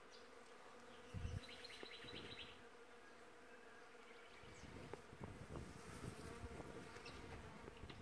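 Faint, steady buzzing of bees foraging on the blossom. A short, high chirping trill, likely a bird, comes about one and a half seconds in, just after a low bump. Low rumbling sets in about halfway through.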